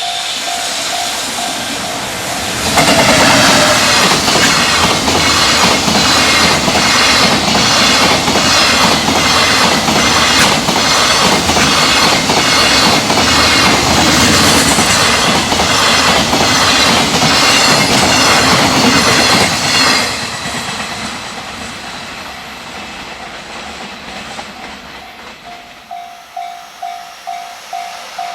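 Freight train passing a level crossing at high speed, its wheels clicking in a steady rhythm over the rail joints, loud for about seventeen seconds before the sound trails away. A level crossing warning bell dings about twice a second before the train arrives and again as it fades.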